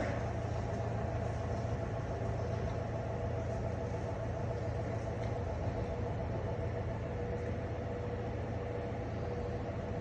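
Feed wagon's engine running steadily as it delivers mixed ration along a cow shed feed passage: a continuous low hum with a faint steady higher tone.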